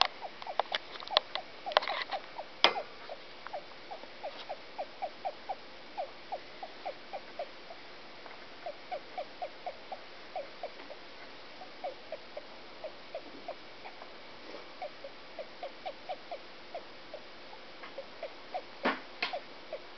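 A pet hamster hiccuping: short, squeaky hics, each dipping slightly in pitch, about three a second in runs broken by short pauses. A few sharp clicks come in the first three seconds and again near the end.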